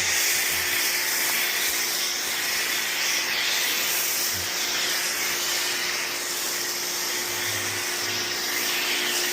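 Pressure washer spraying a car through a Zebra Clean swivel spray gun: a steady high hiss of water jetting onto the bodywork, with a faint steady hum underneath and a few soft low thumps.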